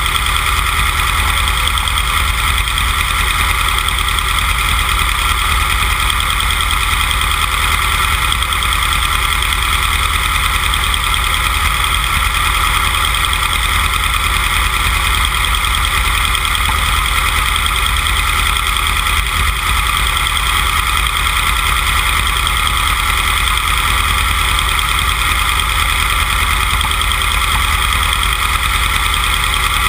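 Van Diemen Formula Renault race car's four-cylinder engine idling steadily, loud and unchanging while the car sits stationary.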